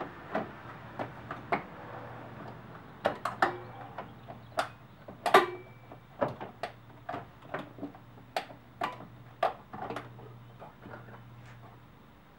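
Plastic interior trim on a Ford F-150 SuperCab rear door being worked loose by hand: a string of irregular sharp clicks and snaps as it is prised and its clips give. The loudest snap comes about five seconds in.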